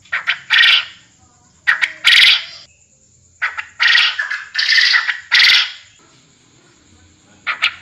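Puyuh kebon quail calling: loud, short, harsh calls in uneven groups, with a run of four close together in the middle and pauses between the groups. It is a recorded lure call of the kind used to attract quail to a trap.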